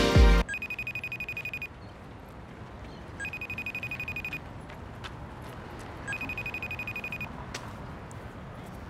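Mobile phone ringing: three trilling rings, each a little over a second long and about a second and a half apart. Music cuts off just before the first ring.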